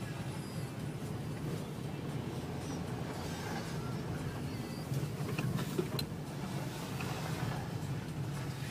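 Car driving along a snowy road, heard from inside the cabin: a steady low engine and road hum. A few light clicks come between about five and six seconds in.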